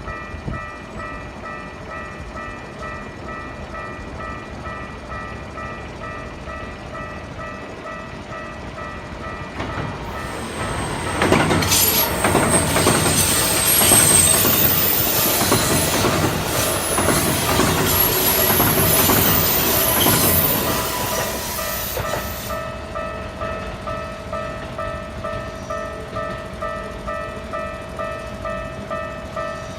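Japanese level-crossing warning bell ringing a steady repeating electronic ding, about two rings a second. About ten seconds in, a Keikyu train passes through the crossing, loud for about ten seconds with rolling wheel and rail noise and some high-pitched whine. It then fades, leaving the bell ringing on.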